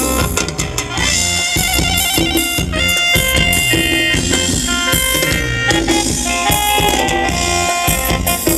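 Live band playing upbeat Thai ramwong dance music, a drum kit keeping a steady beat under sustained melody lines from horn-like instruments.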